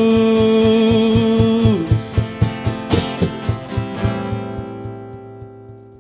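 Music: the ending of a gospel rap track, a steady beat with held tones and guitar. The held tones stop about two seconds in, a few quicker hits follow, and the music then fades out.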